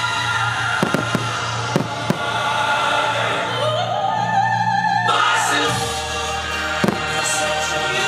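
Choral, operatic music with a singing voice, over which fireworks crack in sharp single bangs: two about a second in, two more near two seconds, and one near seven seconds.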